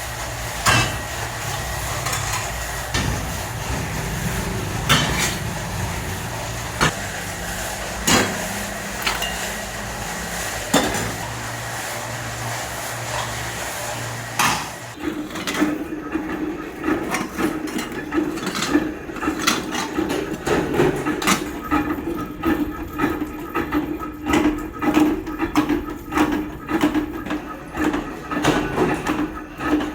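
Metalworking on scrap AC compressors. For the first half a machine runs steadily, with a sharp metal strike every couple of seconds. For the second half a quicker, irregular run of knocks sounds over a steady hum.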